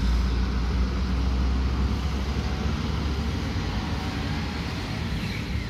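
Intercity bus's diesel engine running with a deep, steady rumble as the bus pulls away, slowly fading.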